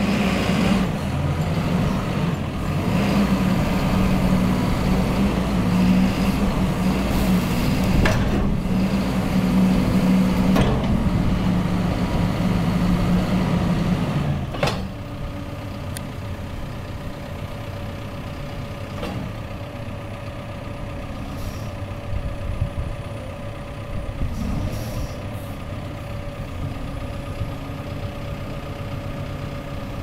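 Caterpillar 420E backhoe loader's four-cylinder diesel engine running steadily at raised revs, then dropping to a quieter idle about halfway through. A few sharp knocks from the machine are heard along the way.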